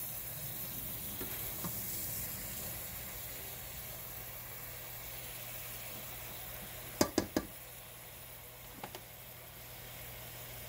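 Spinach sizzling in oil in a stainless steel sauté pan as it is turned with a spatula. About seven seconds in the spatula knocks sharply against the pan three times in quick succession, then twice more, lightly, about two seconds later.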